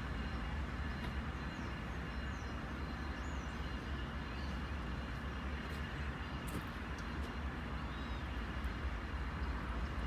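Low, steady rumble of a GE Dash-9 diesel locomotive running.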